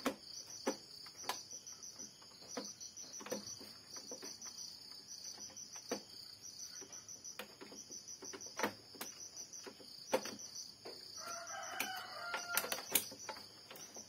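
Scattered light clicks and taps of plastic printer parts being handled as the carriage and flex cable are pushed back into an Epson L3110 printer. A steady high-pitched chirring runs in the background, and a brief faint wavering call comes about 11 seconds in.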